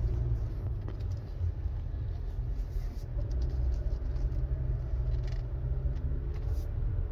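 Acura TLX Type S driving: a steady low rumble with a few faint, scattered ticks.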